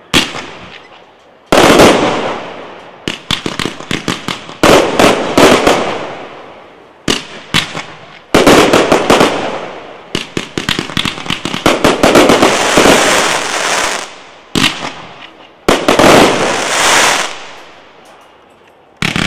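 Professional fireworks display: aerial shells and cakes going off in quick succession, a sharp bang every second or two, each dying away, with rapid clusters of small pops and crackles after many of them.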